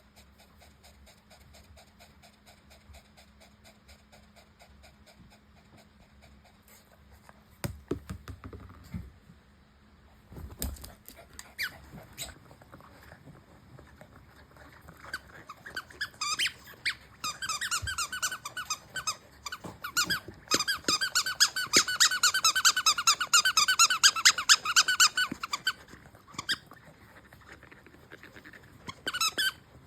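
A Papillon–Corgi mix puppy squeaking a squeaky toy in rapid runs of squeaks. After a few knocks, the squeaks build from about halfway through and are fastest and loudest for about five seconds, with a short last burst near the end.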